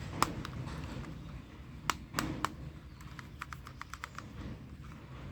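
Airsoft pistol clicking: a few sharp single snaps, then a quick run of about eight lighter clicks lasting about a second.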